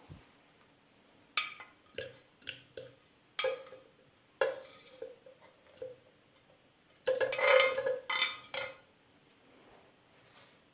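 Dishes and cutlery clinking and knocking: a run of separate sharp clinks with short ringing, then a denser clatter about seven seconds in.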